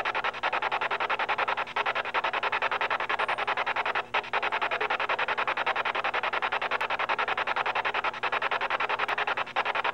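Spirit-box style radio sweep run through a portal echo device: rapid, evenly chopped rasping static, with a brief drop about four seconds in and a faint steady hum underneath.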